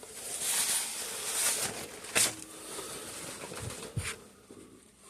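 Paper towel wiping and scrubbing inside a cylinder bore of a Kohler opposed-twin engine, a dry rubbing hiss, with a sharp click about two seconds in and a lighter knock near the end.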